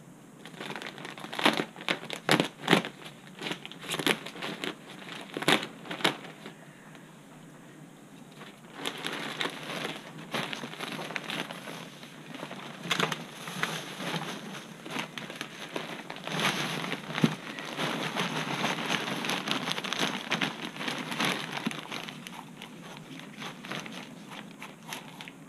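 Plastic potting-soil bag crinkling as it is handled, then potting mix pouring and sliding out of the bag into the barrel as a steady rustle from about nine seconds in, thinning out near the end.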